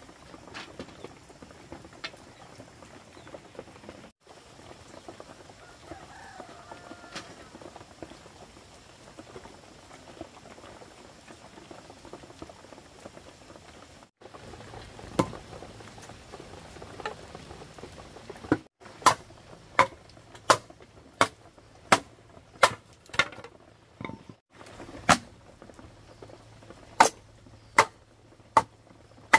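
Steady hiss of heavy rain, then in the second half a run of sharp, evenly paced knocks about one every three-quarters of a second: hammer blows while building a pigeon coop.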